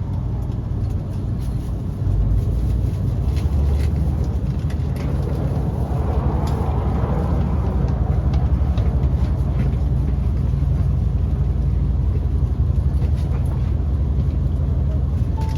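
Cabin noise of a JR Central HC85 series hybrid diesel-electric express train running: a steady low rumble with faint clicks, growing louder about two seconds in.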